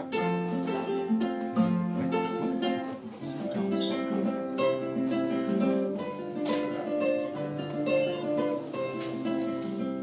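Acoustic guitar playing the instrumental introduction to a song, a steady run of plucked notes and chords.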